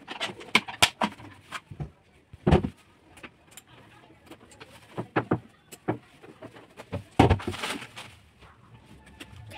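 Irregular clicks and knocks of hard plastic as RO water-purifier filter cartridges and their fittings are handled and pulled out by hand, with two heavier thumps about two and a half and seven seconds in.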